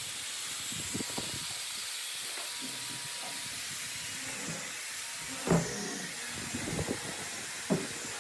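Steady hiss with a few scattered knocks and taps, the loudest about five and a half seconds in and another near the end.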